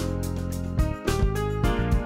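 Music with a steady beat and deep bass.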